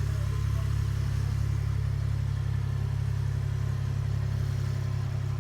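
A steady low rumble holding an even level, with no clicks, bangs or crackles.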